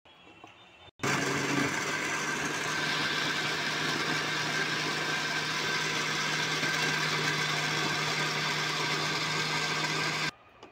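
Electric countertop blender motor running steadily at speed, churning mango pulp into a smooth shake. It starts about a second in and cuts off abruptly near the end.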